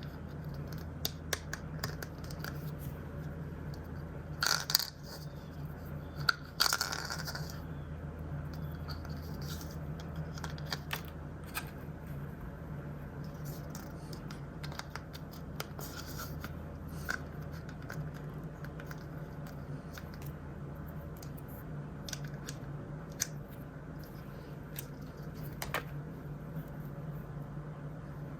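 Hands opening plastic blind-bag packaging and handling small plastic toys: scattered light clicks and rustles, with two louder rustling bursts about four and a half and six and a half seconds in, over a steady low hum.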